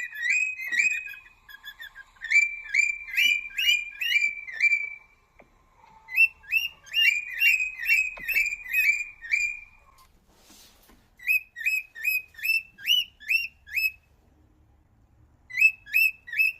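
A bird singing in phrases of quick, repeated, rising whistled notes, about three a second, with short pauses between the phrases.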